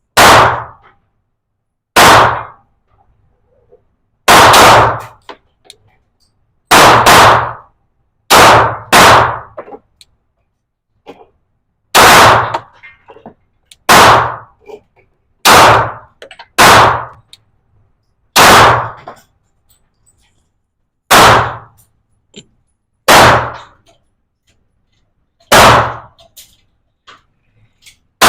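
Glock pistol firing about sixteen single shots, spaced one to three seconds apart with a few fired in quick pairs, each with a short echo.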